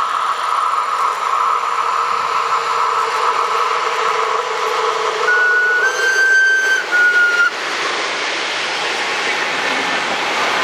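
Re 4/4 I electric locomotive approaching with a steady high whine, then sounding its horn for about two seconds midway, in three steps: one note, a slightly higher one, then back down. The train then passes close, its coaches rolling by on the rails with a steady rush.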